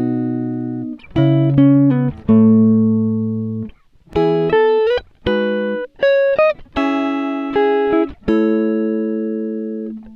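Background music: a clean guitar playing plucked chords and single notes, each ringing out and fading, a few with slight bends. Fuller music with a bass enters near the end.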